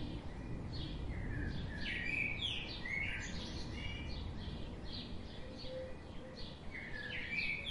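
Birds chirping in short sweeping calls, about two a second, over a steady low background rumble.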